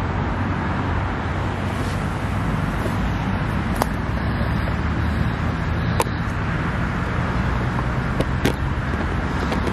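Steady road traffic noise from cars circling the roundabout, a continuous low rumble, with a few short sharp clicks in the second half.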